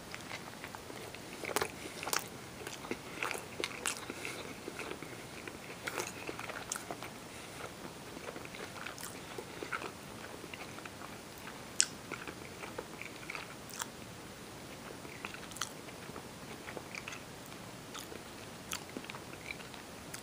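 A person chewing a bite of a soft slider burger close to the microphone: scattered wet smacks and small clicks, more frequent in the first few seconds, with one sharper click about twelve seconds in.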